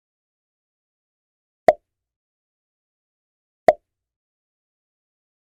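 Two short, identical pop sound effects about two seconds apart, in otherwise dead digital silence.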